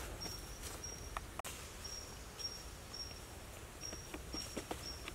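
Forest ambience: a repeated short, high chirp about twice a second, from a bird or insect. Faint scattered crunches and rustles of footsteps on leaf litter.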